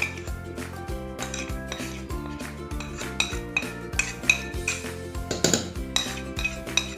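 Spoon clinking and scraping repeatedly against a tiffin-carrier bowl as poppy-seed paste (posto bata) is scooped into it, with light background music underneath.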